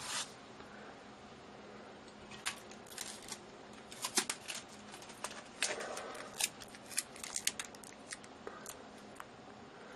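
Adhesive tape being pulled off and laid onto a painted canvas: a scattered run of sharp crackles and clicks from a couple of seconds in until near the end.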